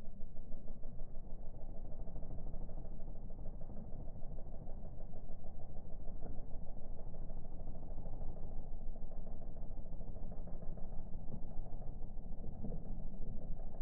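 Outboard motor of a launch following close behind a rowing double scull, running steadily with a low, even rumble.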